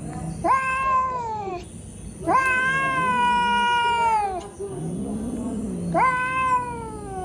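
Cat meowing: three long, drawn-out meows, the middle one the longest, each starting with a quick rise and then sliding down in pitch.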